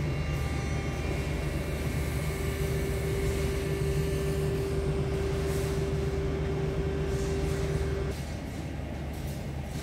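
Steady low mechanical hum, with a steady higher tone over it from about two seconds in that stops at about eight seconds, where the sound drops a little in level.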